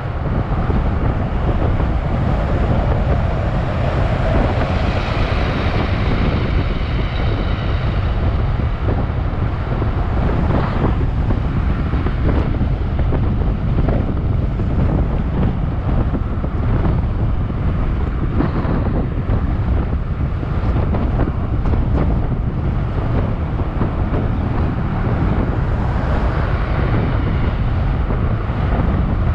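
Steady, loud wind rumble on the microphone of a camera riding on a moving scooter, with the scooter's engine and road noise under it.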